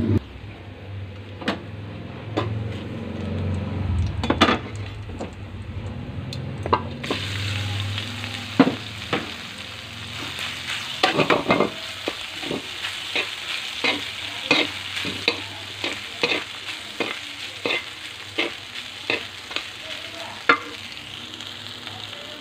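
Garlic frying in a metal pan, then cooked rice being stir-fried in it: a steady sizzle with a metal slotted spoon scraping and clicking against the pan. The sizzle turns brighter about seven seconds in, and the clicks come thick and repeated through the second half.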